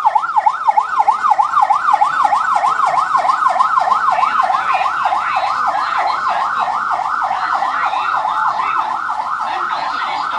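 Electronic siren of a pickup-type emergency vehicle with flashing lights, sounding a fast yelp: a pitch sweeping rapidly up and down, about four times a second, without a break.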